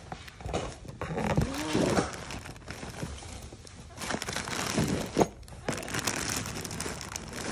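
Plastic bags crinkling and rustling against a cardboard box as they are handled and picked at, with a few small knocks. A short vocal sound, rising then falling, about a second and a half in.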